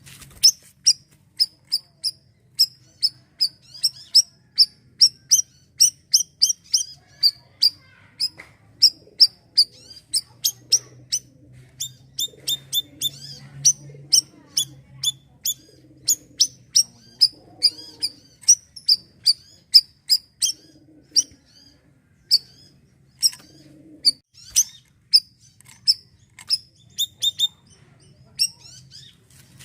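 A bayeman (siri-siri) bird calling vigorously: a fast run of short, sharp, high chirps, about two a second, with brief pauses. A faint low hum sits underneath.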